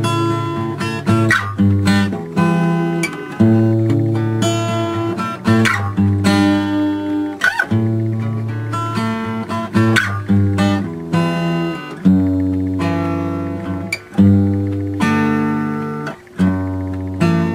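Background music: a strummed acoustic guitar, its chords changing every second or two.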